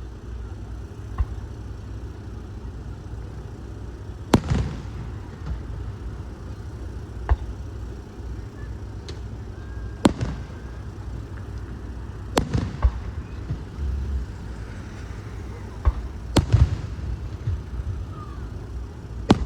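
Fireworks display shells bursting overhead: about six sharp bangs a few seconds apart, some trailed by a short crackle or rumble, over a steady low background rumble.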